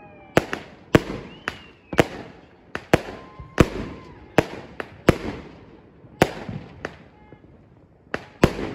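Consumer fireworks cake firing aerial shots one after another: sharp bangs roughly every half second to a second, a few followed by a short whistling tone, with a brief lull about seven seconds in before two more bangs.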